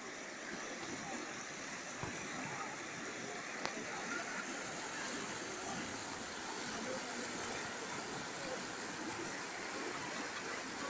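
Shallow river water rushing and churning over rocks and through the gaps under a low stone footbridge, a steady, even rush of white water.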